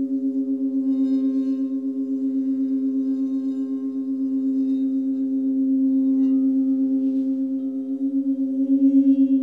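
Alchemy crystal singing bowls sustaining a steady drone of several held tones, pulsing several times a second as the tones beat against each other. The bowls are tuned to 432 and 528 Hz.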